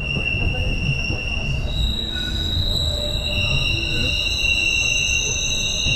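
Train wheels squealing against the rails, several high, steady tones that start and stop and shift pitch every second or two, over the low rumble of the train running.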